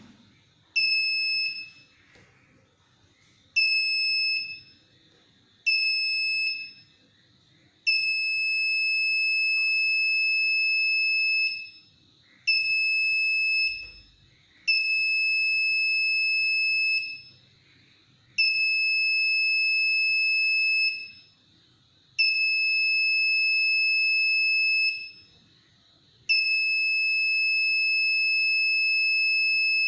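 Small electronic buzzer on an Arduino touch-sensor circuit giving a steady high-pitched beep while a finger rests on the touch pad. There are nine beeps of uneven length: three short ones of about a second, then longer ones of two and a half to nearly four seconds.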